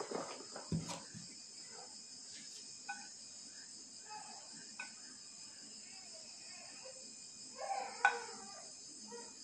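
Steady high chirring of crickets, with soft knocks and rustles of hands tossing floured banana stem slices in a plastic tub. A brief louder clatter comes about eight seconds in.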